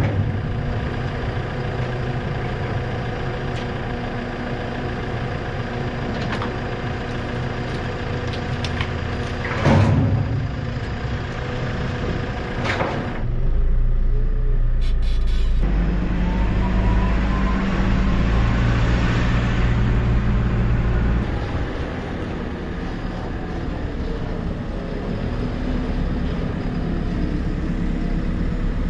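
Tractor engine running steadily, with a couple of brief knocks about ten and thirteen seconds in. It grows louder and deeper from about thirteen seconds in and eases back about eight seconds later.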